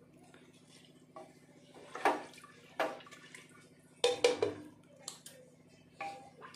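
Wooden spatula stirring rice in water in an aluminium pressure cooker: several short sloshing splashes and knocks against the pot, over a steady low hum.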